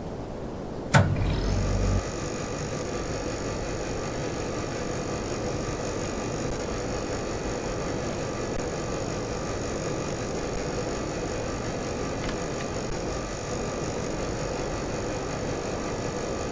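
Air conditioner running with a steady whirring hum and several faint steady high tones. A sharp click comes about a second in, followed by a brief louder low rumble before the sound settles.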